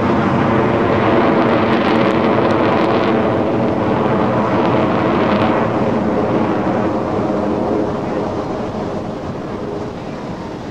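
Jet engines of five F/A-18 Hornets flying in close formation, a loud steady roar with a whining tone. It grows fainter over the last few seconds as the jets move away.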